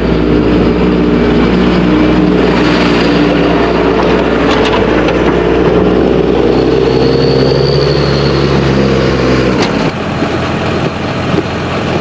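Tractor engine running steadily under way; about ten seconds in its steady note breaks off suddenly, leaving a rougher rattling noise.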